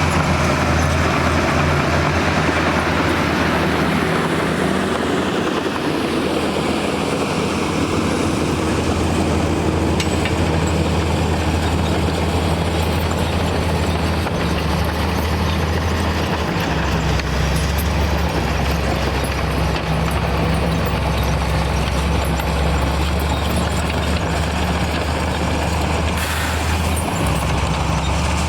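Heavy diesel engine of earthmoving machinery running steadily under work, a low rumble whose pitch shifts slightly a few times.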